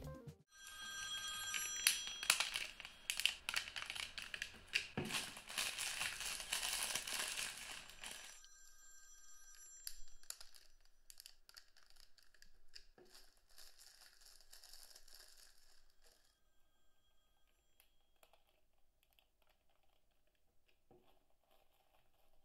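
Office background noise, with clicks, rustles and a few steady tones, recorded at a head-and-torso simulator's ear. About eight seconds in it drops to a quieter, duller level, as through Pixel Buds Pro 2 with noise cancelling on. From about sixteen seconds it is barely audible, as through Sony WF-1000XM5 earbuds with noise cancelling on, which cut the highs more.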